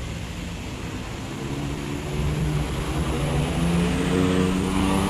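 Engine of a decorated mountain minibus pulling hard up a hairpin bend, a tanker truck's engine close behind it. It grows louder about two seconds in as the bus passes close by.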